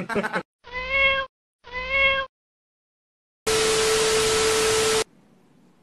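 A cat meows twice, two short even-pitched calls about a second apart. Then, about three and a half seconds in, comes about a second and a half of loud video-static hiss with a steady tone under it, cutting off suddenly.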